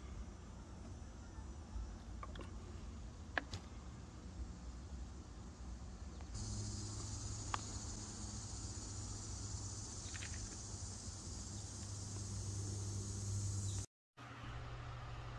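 Outdoor garden ambience: a low rumble with a few faint clicks, then, about six seconds in, a steady high-pitched insect drone sets in over a low hum. It cuts off suddenly near the end, giving way to a steady low room hiss.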